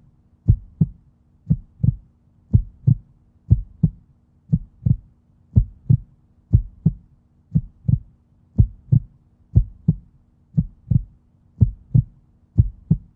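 Human heartbeat, a steady lub-dub: pairs of short low thumps, about one beat a second.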